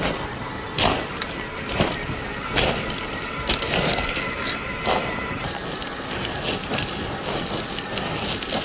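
1/8-scale RC rock crawler driving over loose stones: a faint, steady whine from its electric motor and gears under a rough crunching, with sharp clicks of stones knocking under the tyres about once a second.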